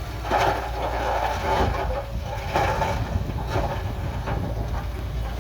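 Heavy earthmoving machinery at work: a deep, steady diesel rumble with irregular louder rattling bursts about once a second.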